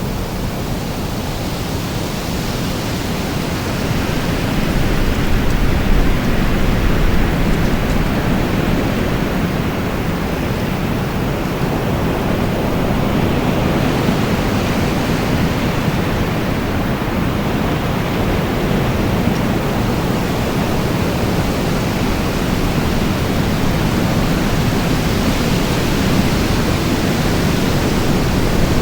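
Strong wind blowing steadily, a dense rushing noise that swells a little about five seconds in and then holds.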